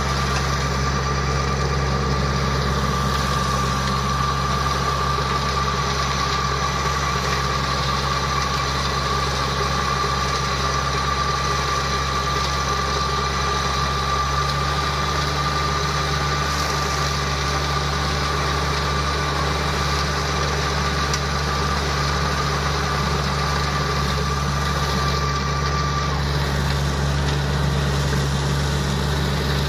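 Engine of a homemade flail mower, built from a tracked snowblower, running steadily, with a steady high whine that stops near the end.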